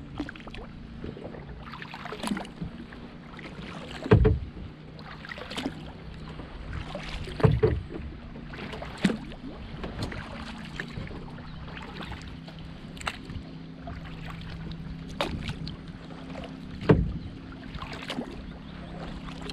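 Kayak paddle strokes: the blades dip and splash in the water every second or two, with a few louder thumps against the plastic hull.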